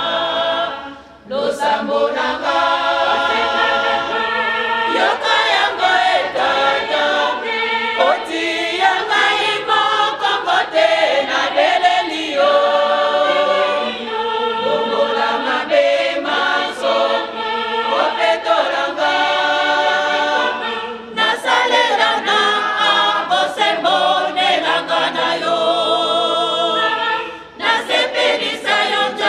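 A choir singing together, many voices on sustained sung lines, with short breaks between phrases about a second in, about two-thirds of the way through and near the end.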